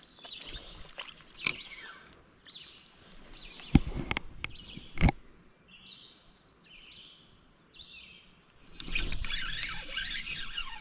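Spinning rod and reel being handled as a lure is cast and retrieved, with sharp clicks and knocks, two of them loud about four and five seconds in. Three short whirring spells follow, then a longer rush of noise near the end.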